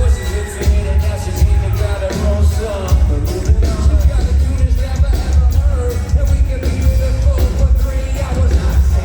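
Live band playing a pop-rap song with a sung vocal over a heavy, steady bass and kick-drum beat.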